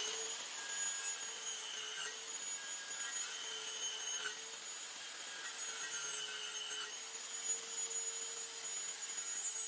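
Corded Ryobi circular saw running steadily under load, its blade cutting across a wooden board to clear out finger-joint notches, with a steady motor whine over the cutting noise.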